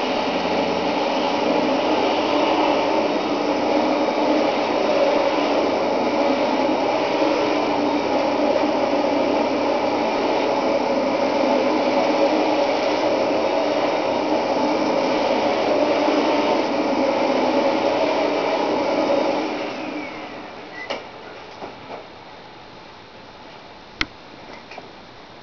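Panasonic Jet Flo MC-658U upright vacuum cleaner running steadily as it is pushed over carpet, then switched off about 19 seconds in, its motor winding down with a falling whine. A few light clicks and one sharp click follow near the end.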